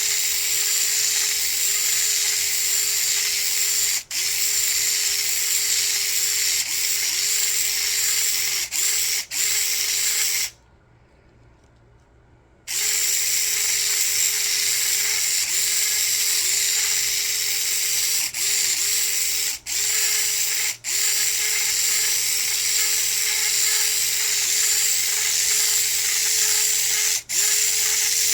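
Small handheld electric mixer with a paddle attachment stirring resin: a steady motor whine that cuts out briefly several times and stops for about two seconds around a third of the way in, then runs on.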